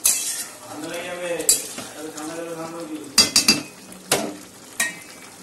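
Metal spoon stirring curry in an aluminium pan, scraping through the thick gravy, with several sharp clinks of spoon on pan, including a quick run of three a little past the middle.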